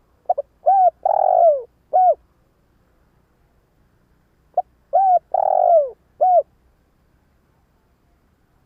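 Spotted dove, a caged decoy bird, cooing twice, about four seconds apart. Each phrase is a quick short note and a coo, then a longer coo that falls in pitch, and a short closing coo.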